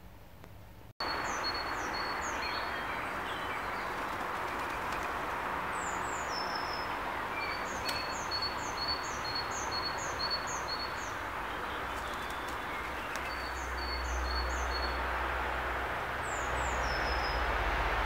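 Small garden songbird singing in runs of quick, high, down-slurred notes, repeated in phrases, over a steady outdoor hiss. The sound comes in suddenly about a second in, and a low rumble joins about two-thirds of the way through.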